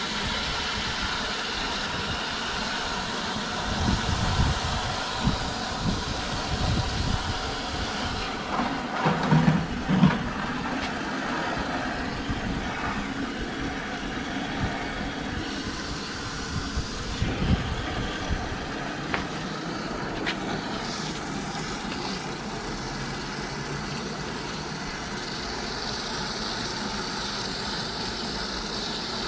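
Small pump running steadily, circulating vinegar through a tankless water heater to flush out lime scale. A few knocks come between about four and ten seconds in.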